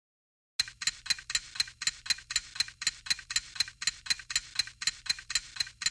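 Steady clock-like ticking, about four sharp ticks a second, starting about half a second in after silence.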